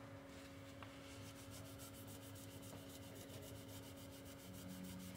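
Faint rubbing of a hand over the MacBook Pro's bare aluminium battery bay, wiping off leftover battery glue residue, over a steady low electrical hum.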